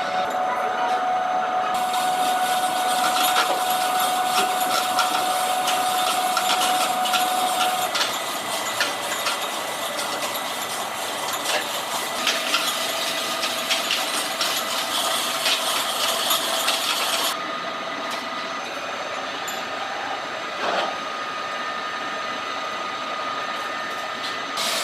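Metal-cutting machine tools running in a workshop: a steady machine whine with dense scraping and ticking over it. The sound changes abruptly about two seconds in and again about seventeen seconds in.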